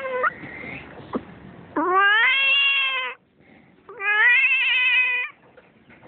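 A cat in labour yowling: two long drawn-out calls, each rising at the start and then held for over a second, with a short gap between them.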